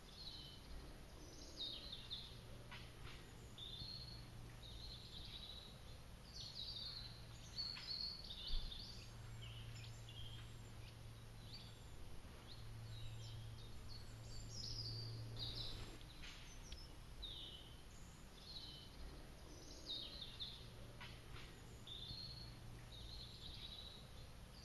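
Faint birdsong: many short chirping calls from small birds, over a low steady hum, with a single brief knock about a third of the way in.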